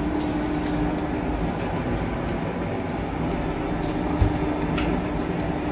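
Steady hum of a room appliance such as a fan or air conditioner, with a few faint clicks of a plastic spoon against a glass.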